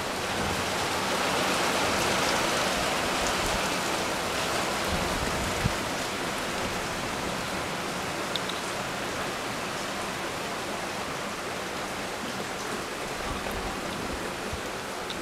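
Heavy downpour of rain, a dense steady rush that swells a little in the first few seconds. There is a single short knock about five and a half seconds in.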